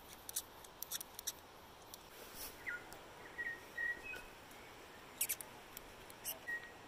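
A New Zealand fantail calling faintly: scattered short, sharp high chips, with a few brief thin whistled notes around the middle.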